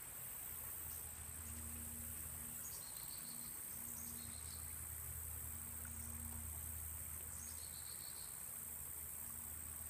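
Steady, high-pitched chorus of insects trilling without a break. Three short chirping calls cut in briefly. A faint low hum runs underneath.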